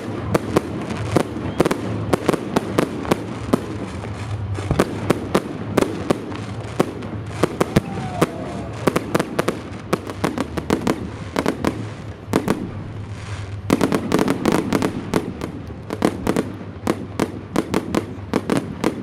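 Aerial fireworks salute: a rapid, irregular series of sharp bangs and crackles from bursting shells, growing into a denser barrage about fourteen seconds in.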